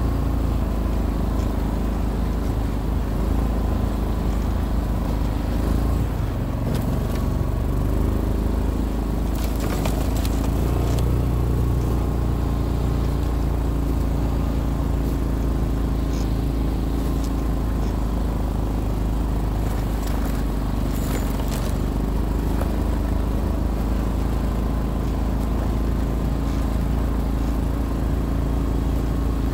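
ATV engine running steadily as it pushes through fresh snow on the trail. A few brief scraping crackles come about ten and twenty seconds in.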